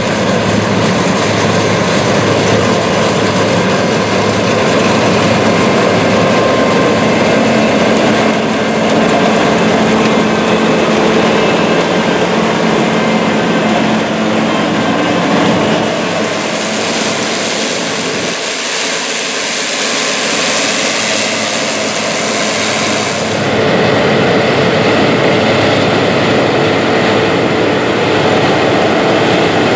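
Combine harvester running steadily at work, a loud mix of engine hum and threshing noise. For several seconds past the middle, the low rumble drops out and a high hiss takes over, then the fuller sound returns.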